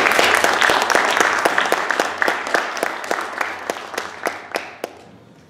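Audience applauding a speaker's introduction. Dense clapping at first thins to a few scattered claps and dies away about five seconds in.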